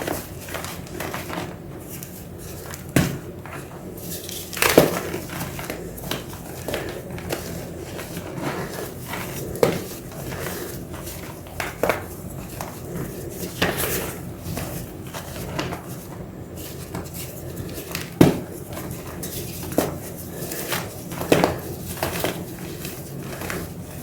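Scattered knocks and clinks of hard objects being handled, at irregular intervals over a steady low background hum.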